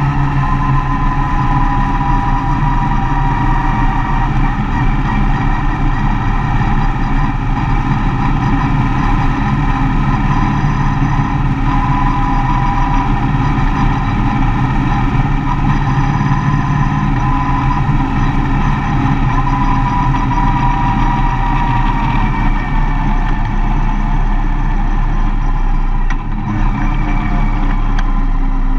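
Mercedes-Benz Vito van on the move, its engine running steadily under a constant low rumble.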